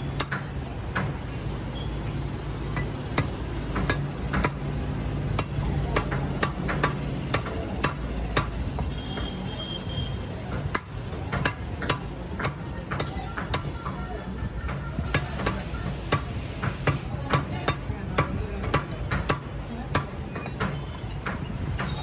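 Large butcher's knife chopping chicken on a thick round wooden chopping block: a run of sharp chops, about two or three a second, over a steady low hum.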